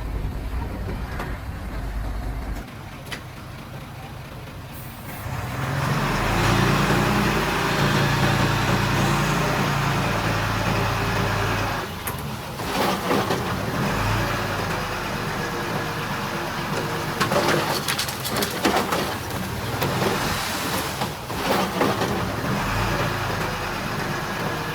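Diesel engines of earthmoving machines at work. One engine comes up loud about five seconds in and runs hard for several seconds, then eases. Irregular metallic clanks and rattles follow.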